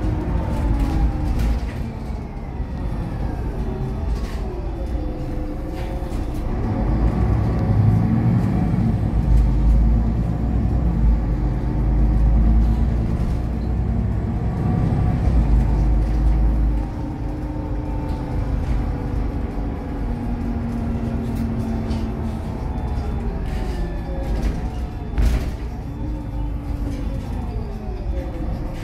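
City bus engine and drivetrain heard from inside the passenger cabin while the bus is driving. The whine falls in pitch as it slows and rises again as it speeds up, near the start and again near the end, and is louder and heavier in the middle as it pulls harder.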